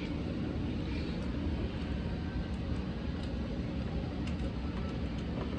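Steady low background rumble, with a few faint small clicks and taps from a screwdriver and screws being worked on a TV's metal rear bracket plate.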